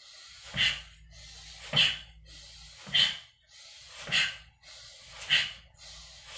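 A man's sharp, forceful breaths out, one with each punch of a chi kung arm-strengthening exercise, about one every 1.2 seconds: five in all.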